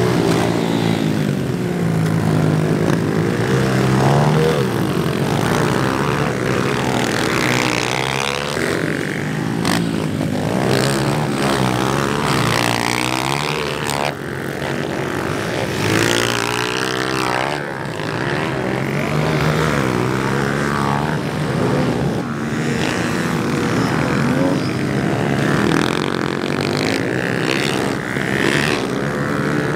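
Several small four-stroke pit bikes (110cc class) racing on a dirt track, their engines revving up and down as the riders accelerate and shift, the notes rising and falling over one another.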